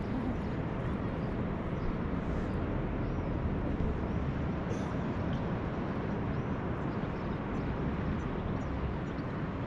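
Steady wind rumble on the microphone, with no distinct events.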